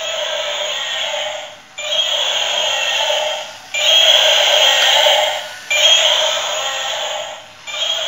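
Toy dinosaur's electronic sound chip playing a dinosaur call through its small speaker, repeated about every two seconds with short breaks, tinny and without any low end.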